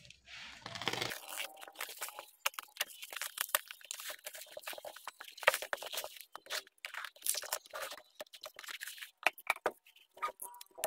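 Plastic packaging wrap crinkling and tearing as it is cut open with a utility knife, in irregular crackling bursts.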